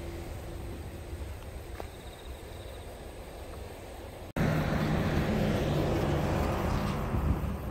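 A passing train's rumble fades away. After a sudden cut, a louder steady rumble with a low hum follows as a silver EF510 electric locomotive approaches from far down the line.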